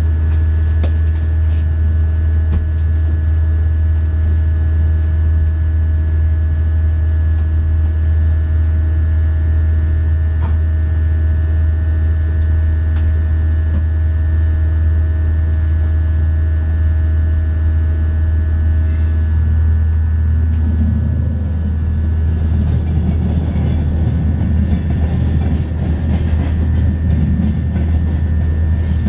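Škoda Vagonka EJ575 electric multiple unit running, heard from inside the carriage: a steady low drone with several steady whine tones. About two-thirds of the way in, the whine tones drop away and a rougher rumble of the running gear rises and grows.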